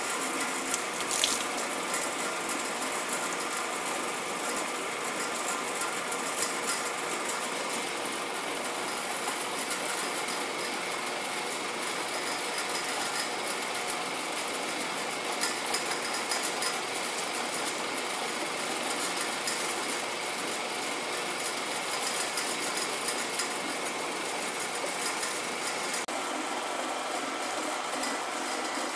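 Motor-driven gas-transfer impeller running steadily in a clear water tank, whipping micro-bubbles through the water: a constant mechanical hum with several steady tones over a churning hiss. There is a short click about a second in.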